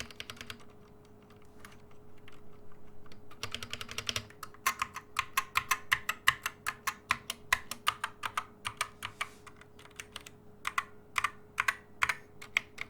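Typing on a GamaKay MK61 mechanical keyboard with Gateron Yellow optical switches and PBT pudding double-shot keycaps, as a switch sound test. It starts sparse and quiet, becomes a fast run of keystrokes, then slows to separate key presses near the end.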